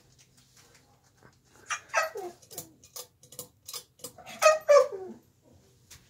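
A dog whining and yelping: two loud cries that slide down in pitch, about two seconds in and again near the end, with short yips between them. A faint steady low hum from the running ceiling fan lies underneath.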